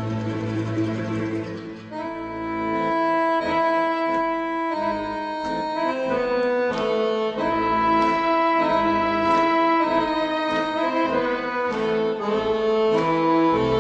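Background music: a melody of long held notes on a reedy, wind-like instrument over a steady beat.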